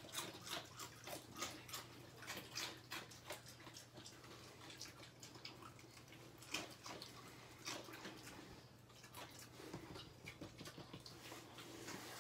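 A dog chewing and crunching chips: a faint, irregular run of crunches and mouth clicks, dense at first, thinning out around the middle and picking up again towards the end.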